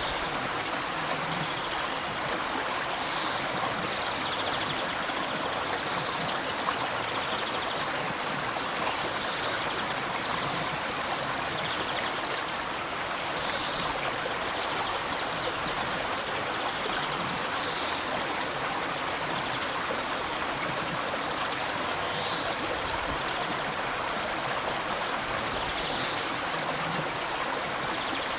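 River water flowing, a steady, even rush of stream noise.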